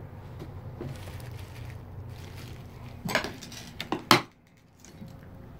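Something hard and brittle crunching and clinking under a foot on the attic floor: a sharp burst about three seconds in and a louder, single crack just after four seconds.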